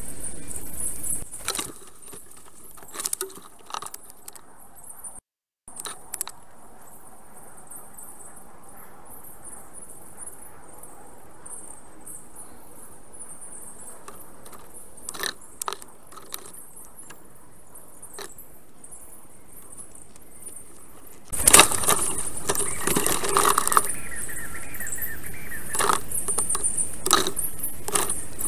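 Black stork working sticks and twigs in its nest: scattered clicks, cracks and rustles over a steady high hiss. The sound cuts abruptly: a brief dropout about five seconds in, a quieter stretch, then a louder passage from about two-thirds through.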